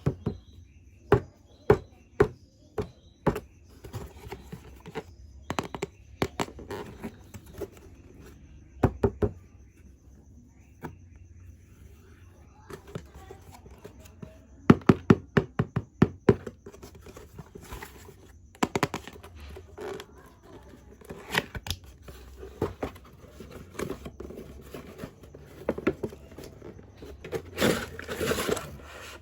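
Hands unpacking a toy from its box: a run of sharp taps and knocks on cardboard and plastic packaging, with rustling handling, a quick cluster of taps about halfway, and a louder stretch of crinkling or tearing packaging near the end.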